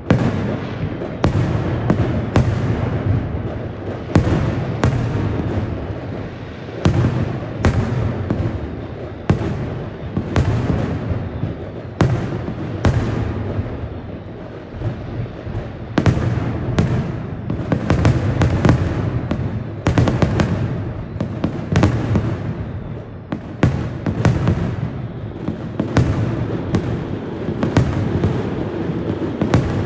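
Fireworks display heard from a distance: a rapid, irregular series of sharp bangs, several a second at times, over a continuous deep rumble of echoing blasts.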